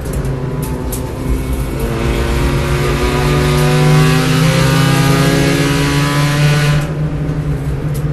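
B-Spec race car's engine heard from inside the car on track. It is off the throttle with a few clicks for the first couple of seconds, then pulls through a gear with its pitch rising steadily, and eases off briefly near the end.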